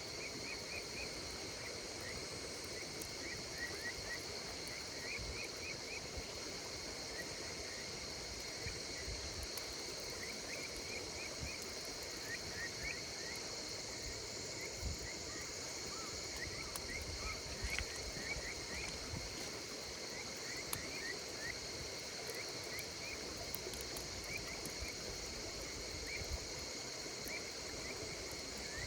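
Campfire crackling with scattered small pops, under insects calling: a steady high trill and runs of short chirps repeating all through.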